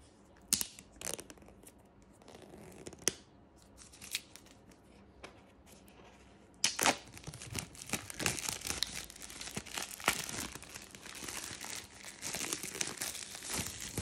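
Packaging on a smartphone box being torn open: a few sharp clicks and taps at first, then from about seven seconds in a continuous rasping tear with many sharp crackles.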